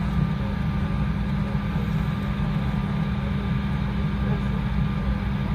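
Steady low rumble of cabin noise inside an Embraer E175 airliner taxiing, from its turbofan engines and air conditioning, with a faint steady tone above it.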